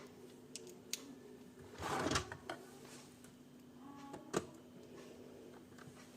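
Small screwdriver working a screw in a laptop's case: a few sharp clicks and a short scrape about two seconds in.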